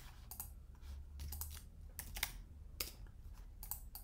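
Computer keyboard typing: irregular, sharp keystroke clicks, a dozen or so spread unevenly, over a faint low hum.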